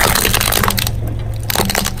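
Woven bamboo basket of colourful plastic pieces being crushed under a car tyre, its splints cracking and crunching in a dense burst through the first second and again in a shorter burst near the end.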